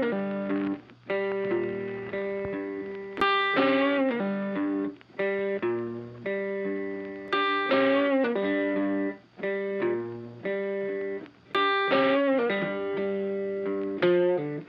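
Background music: a plucked guitar tune, with notes struck about once a second and ringing out in a repeating pattern.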